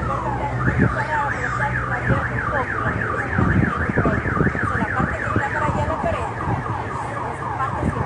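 Car alarm sounding and cycling through its tone patterns. A fast rising-and-falling warble, about four cycles a second, changes near the end back to repeated falling sweeps, with street noise underneath.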